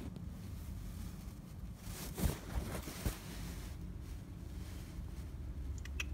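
Handling noise from a phone held against a curtain and a window screen: rubbing with a few soft knocks, over a low steady rumble.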